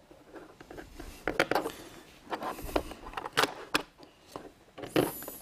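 Alligator-clip test leads being handled and clipped onto a coiled nichrome-wire resistor: a scatter of small sharp clicks and light scrapes, with a louder knock near the end.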